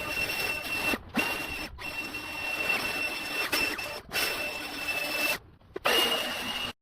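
Power equipment running with a steady hiss and a thin high whine, broken by several brief gaps and cutting off abruptly near the end.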